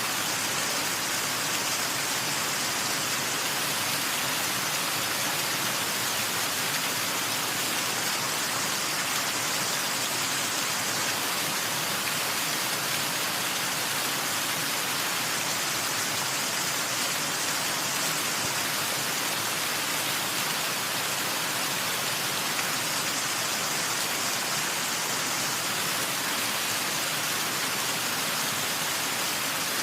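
Waterfall: a steady, even rush of falling water, with most of its energy in the hiss and little low rumble.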